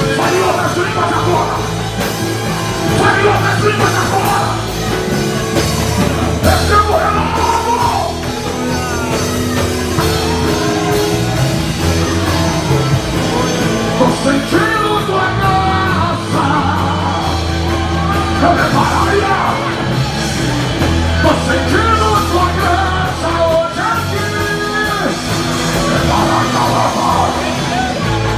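A live worship band playing loud rock-style music through the PA, with keyboard, guitar and drums, and a loud voice over it through a microphone.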